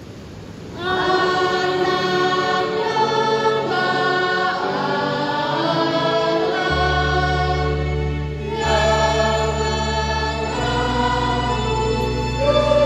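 Church choir singing, coming in about a second in after a short lull. Sustained low bass notes from an electronic keyboard join it about halfway through.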